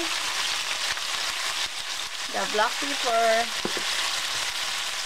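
Beef strips, onion and bell peppers sizzling steadily in a hot stainless steel frying pan, a continuous hiss. A few words are spoken about halfway through.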